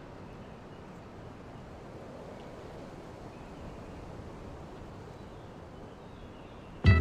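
Steady low wind rumble in an outdoor microphone, then loud music cuts in abruptly right at the end.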